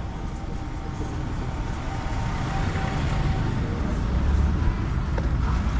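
Street traffic: motor vehicle engines running as a steady low rumble, getting louder in the second half.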